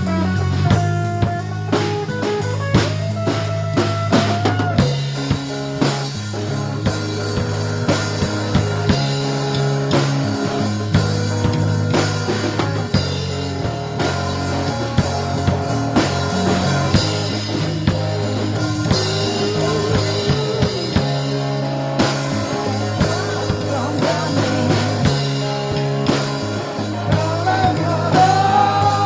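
Live rock band playing an instrumental section: electric guitar lead with bent notes over bass guitar and a drum kit keeping a steady beat with snare rimshots.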